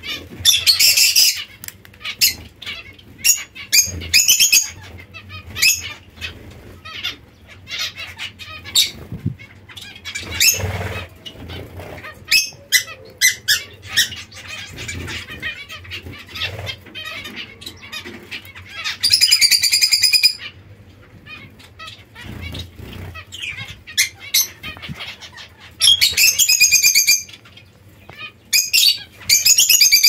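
Zebra finches calling: many short, high nasal beeps and chirps, with three longer buzzy runs of calling or song in the second half, over many light taps of the birds pecking at carrot and seed.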